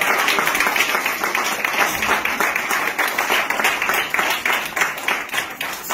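Audience applause: many people clapping steadily together.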